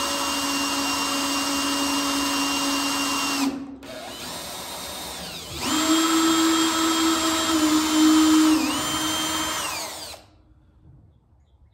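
Cordless drill boring a 3/32-inch pilot hole down into the top of a seized VW Beetle door hinge pin. The motor runs steadily, lets off about three and a half seconds in and runs slower and quieter for a couple of seconds, then comes back to full speed. It dips in pitch twice under load and winds down to a stop about ten seconds in.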